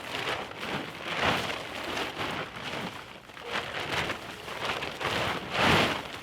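Tent fabric rustling and crinkling as a bundle is unwrapped and handled by hand, in uneven swells, loudest near the end.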